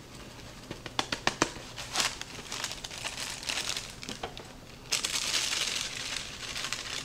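Plastic cake-mix bag crinkling and rustling as dry cake mix is shaken out of it into a ceramic mixing bowl. A few sharp clicks come about a second in, and the longest, loudest stretch of rustling comes about five seconds in.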